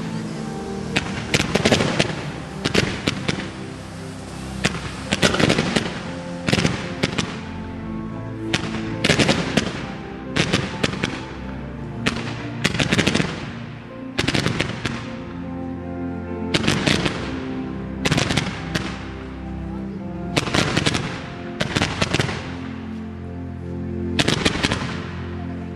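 Fireworks going off: a dense run of bangs and crackle at first, then bursts about every second and a half. Music plays underneath.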